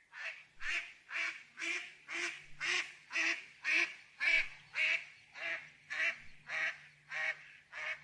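A bird calling over and over in an even rhythm, about two calls a second, with a faint steady low hum underneath.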